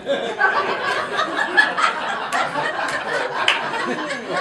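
Comedy club audience laughing together at a punchline, many voices at once, starting suddenly and holding steady.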